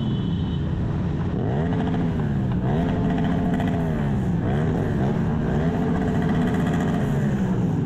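Motorcycle engine revving up and down several times, its pitch climbing, holding and dropping again.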